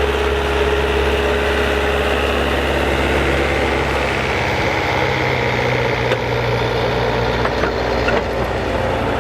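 Old farm tractor's engine running steadily while ploughing; its low note changes about four seconds in, with a few light clicks near the end.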